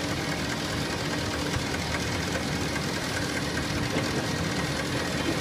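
Four-row biscuit sandwiching machine running: a steady, dense mechanical clatter of conveyor lanes and feed mechanisms, with a faint steady hum underneath.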